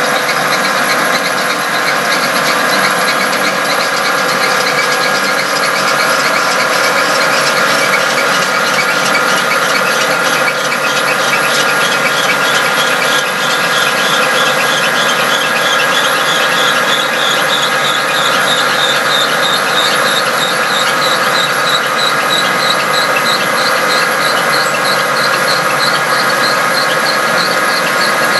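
Marvel vertical band saw running with no cut, a steady high whine and squeal with a fast repeating tick that climbs slightly in pitch around the middle.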